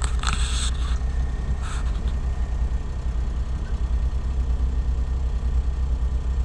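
Smart car engine idling steadily, heard from inside the cabin as a low, even rumble, with a short rustle of handling in the first second.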